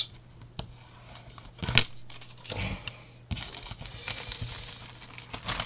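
Clear plastic bag holding model-kit decal sheets crinkling and rustling as hands open it and handle the sheets inside, in irregular handling noises with a sharper crackle about two seconds in and denser rustling in the second half.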